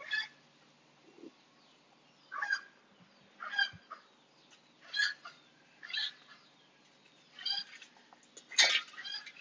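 Husky puppy whining in short, high-pitched cries, about one a second, with the loudest cry near the end.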